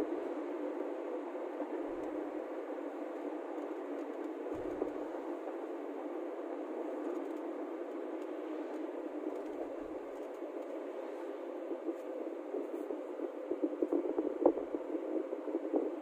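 Steady road noise of a vehicle driving along a highway: an even rumble of tyres and wind, with a few faint knocks near the end.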